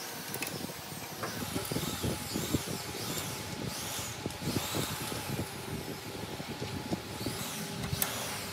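Small metal clicks and knocks as a brass fuel-injection line and its fittings are handled and tightened with a wrench on a diesel engine, over a steady background noise.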